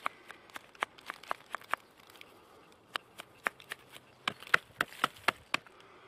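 Irregular small clicks and scrapes as gloved fingers rub soil off a small metal pipe lid and turn it over, the ticks coming thicker toward the end.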